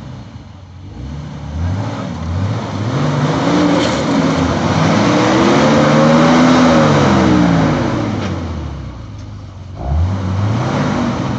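Jeep Wrangler TJ engine revving under throttle, its pitch climbing and falling back several times, with the longest and loudest rev in the middle and another rise near the end, over a steady rushing noise.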